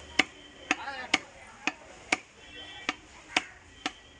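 Heavy knife chopping through fish on a wooden chopping block, about eight sharp strikes at roughly two a second as the fish is cut into chunks.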